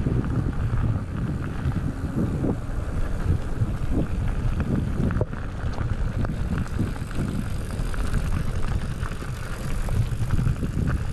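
Wind buffeting the microphone while a bike is ridden along a rough trail: a steady low rumble with scattered knocks and rattles from the ride.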